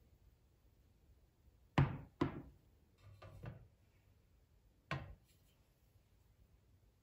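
A few sharp knocks of hard objects: two loud ones close together about two seconds in, softer knocks around three and a half seconds, and one more about five seconds in.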